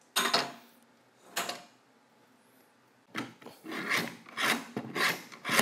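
Depth adjustment of a Milwaukee M18 Fuel rear-handle circular saw being worked by hand: short sliding, rubbing strokes of the shoe and lever, two near the start and a quicker run of about five from about three seconds in. It moves freely without hanging up.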